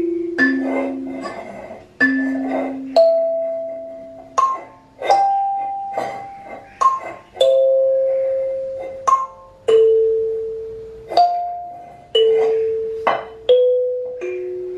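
Background music: a slow melody of single struck notes, each ringing out and fading before the next, about one a second.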